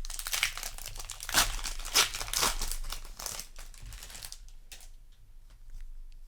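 Foil booster pack wrapper being torn open and crinkled, with a few sharp, louder crackles; the crinkling dies down after about four seconds.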